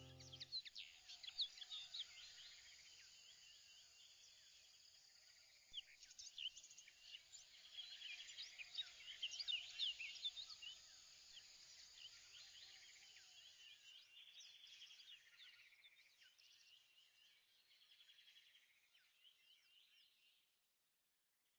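Faint birdsong: many small birds chirping in quick, high twitters, busiest around the middle and fading away near the end.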